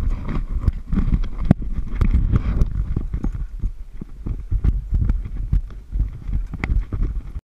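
Irregular knocks and clunks of scuba tanks and dive gear being handled on a rigid inflatable boat, over a steady low rumble. The sound cuts off abruptly near the end.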